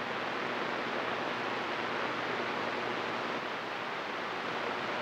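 A CB radio receiver on channel 28 hissing with steady static on the open channel between transmissions, with no signal coming in.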